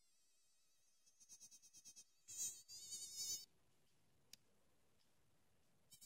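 Toy cicada's electronic buzz: a run of quick pulses building into a louder, high-pitched warbling buzz lasting about a second, followed later by a single click.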